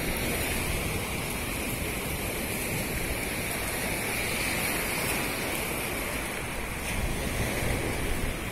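Steady wash of surf on a beach, with wind on the microphone.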